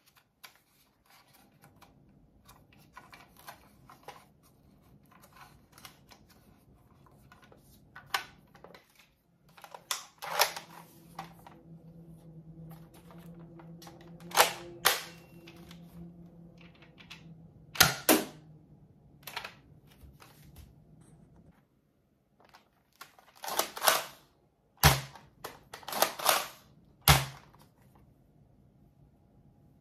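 Sharp plastic clacks of toy foam-dart blasters being worked by hand: about a dozen clicks and snaps, spaced irregularly, with several in quick succession near the end.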